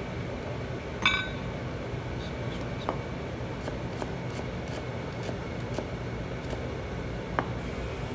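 Knife cutting an onion on a plastic cutting board: light taps and clicks of the blade, with one sharp ringing clink about a second in, over a steady low hum.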